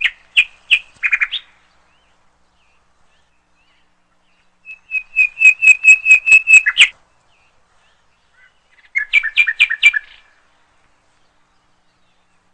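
A small bird singing three short bursts of quick, repeated high chirps: one right at the start, one about five to seven seconds in, and one about nine to ten seconds in.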